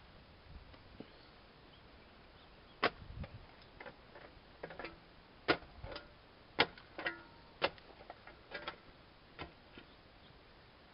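Metal parts of a Wilton bench vise clinking and knocking as they are handled and fitted during assembly: about half a dozen sharp, separate strikes, a few of them ringing briefly.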